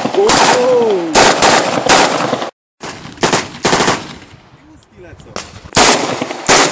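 Kalashnikov-pattern rifles and a submachine gun firing separate single shots, loud and sharp, spaced about half a second to a second apart. The sound drops out completely for a moment about two and a half seconds in.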